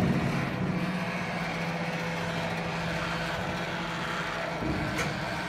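Steady mechanical running of a gantry crane hoist lifting a large log slung on wire cables, with a single sharp click near the end.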